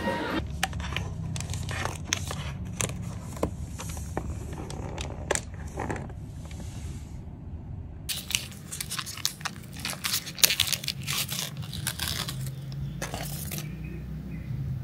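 Irregular crunching and crinkling clicks over a steady low rumble.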